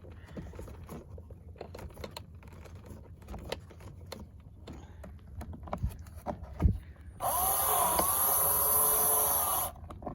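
Small clicks and scrapes of tools and metal parts being handled. About seven seconds in, a power drill-driver runs for about two and a half seconds with a steady whine that wavers slightly in pitch, driving a screw on the generator frame.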